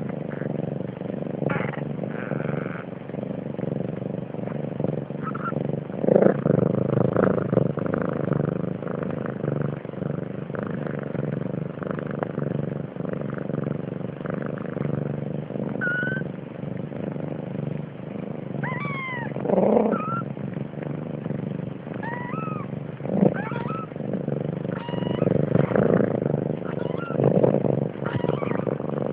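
Newborn Siamese kittens giving several thin, high squeaky mews, mostly in the second half, over a steady low rumble.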